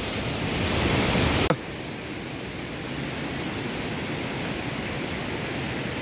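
Steady rush of water from a rain-swollen river. About a second and a half in it cuts abruptly to a quieter, steady rush.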